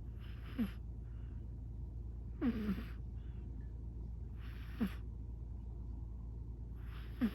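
A British Shorthair cat snoring in its sleep: four short snores about two seconds apart, each falling quickly in pitch.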